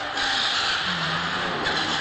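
Electric radio-controlled monster trucks driving on a concrete floor, their motors and gearing running together with tyre noise on the concrete.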